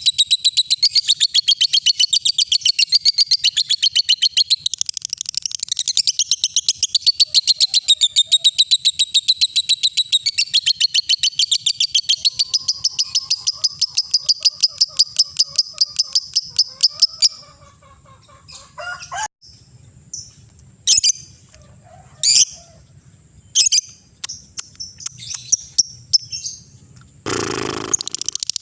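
Lovebird ngekek song: a long, unbroken run of very rapid repeated high chirps that stops about seventeen seconds in. Scattered single chirps follow, with a louder, harsher call near the end.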